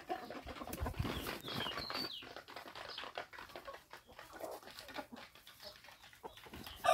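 Faint, scattered calls from free-range chickens, including a few short falling chirps about two seconds in, with light rustles and scuffs of footsteps on dry ground.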